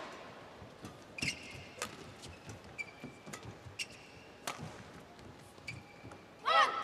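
Badminton rally: rackets strike the shuttlecock about every half second to a second, and court shoes squeak briefly on the floor between hits. About six and a half seconds in, a player's loud shout is the loudest sound as the rally ends.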